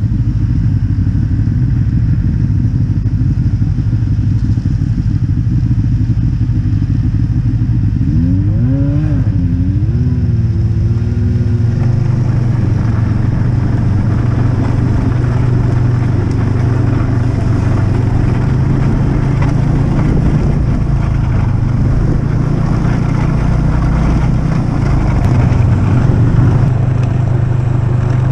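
Snowmobile engine running steadily close to the microphone. About eight seconds in, an engine revs briefly up and down.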